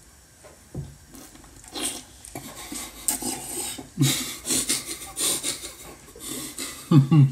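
A man chewing sour lime with wet, smacking mouth noises that get louder from about three seconds in. Near the end he gives a short, loud voiced grunt, falling in pitch, at the sourness.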